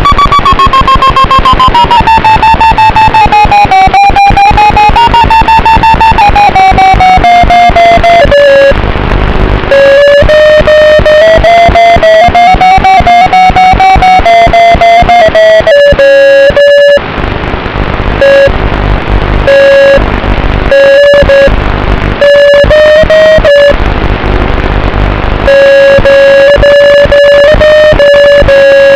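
FPV drone's electric motors and propellers whining, the pitch sliding up and down with the throttle, then cutting out and coming back several times in the second half. The sound is loud and distorted, with wind buffeting the onboard microphone.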